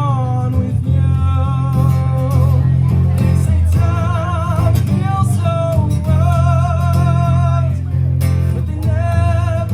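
Live band playing an instrumental break of a slow song: bass and guitar, with a melody line held on long notes that waver with vibrato and bend between pitches.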